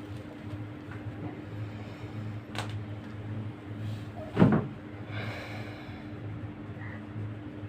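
A single sharp knock about four and a half seconds in, with a lighter click a couple of seconds before it and a brief rustle just after, over a steady low hum.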